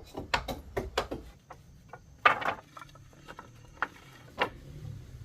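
Irregular sharp knocks and clatters of hard objects, several in quick succession at first, the loudest about two seconds in, and two more spaced out near the end.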